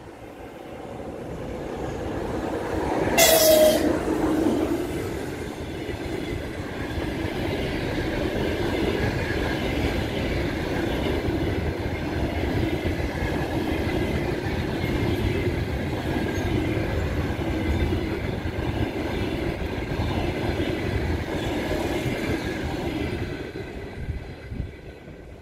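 EP2K electric locomotive giving one short, loud horn blast about three seconds in as it comes up close. Its passenger coaches then pass at speed, with a steady rumble of wheels on the rails that fades near the end.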